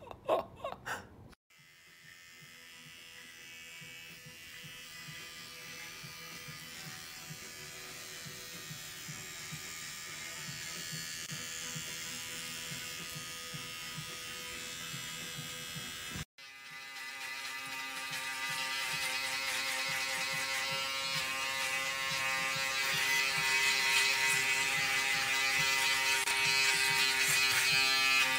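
Bro Style cordless electric beard trimmer buzzing steadily as it is run over the neck and beard, growing louder over time. The buzz breaks off briefly about halfway through and comes back. Two short, loud sounds come in the first second, before the buzzing starts.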